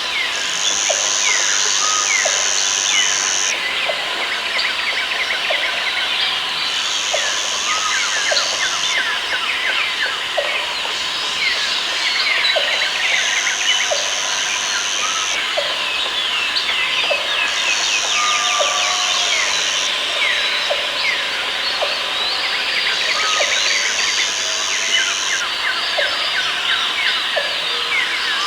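Rainforest ambience: many birds chirping and calling over one another. A high, steady buzz switches on for two to three seconds at a time, five times, with regular faint clicks beneath.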